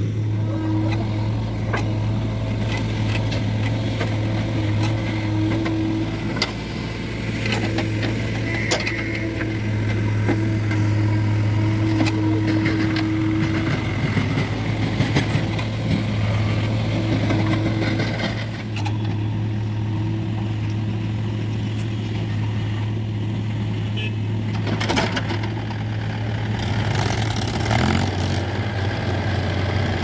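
Diesel engines of a JCB backhoe loader and a farm tractor running steadily while the backhoe dumps soil into a steel tractor trolley, with a few knocks and thuds as the loads land. An engine revs up near the end.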